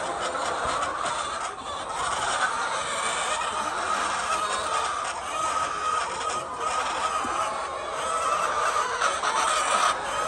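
A large flock of laying hens clucking and calling all at once, a dense, steady chatter.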